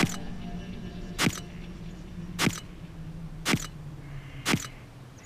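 Camera shutter clicks, five in a row about a second apart, over a faint low hum.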